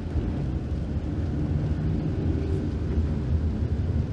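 Steady low rumble of a van's engine and road noise, heard from inside the cab while driving.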